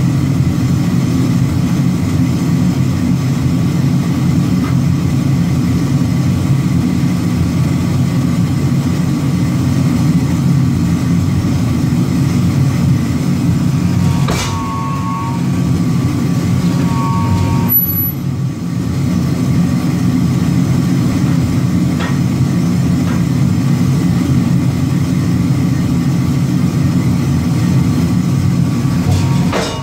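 Large power forging press running with a loud, steady low drone of machinery. It is broken by a few sharp metallic clanks and two brief high squeals around the middle.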